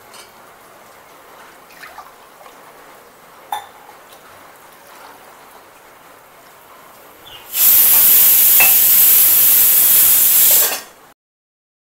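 Pressure cooker releasing steam: a very loud, steady hiss that starts about two thirds of the way in and stops abruptly about three seconds later. Before it, a couple of light knocks of metal kitchenware.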